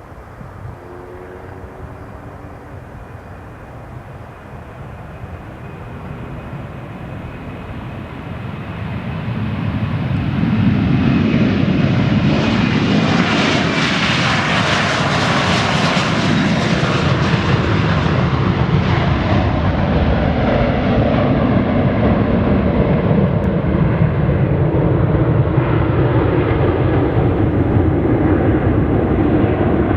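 Boeing 737 Business Jet's CFM56-7 turbofan engines at takeoff power, passing close by: the sound builds over the first ten seconds, is loudest with a bright hiss about halfway, then carries on as a heavy rumble while the hiss fades.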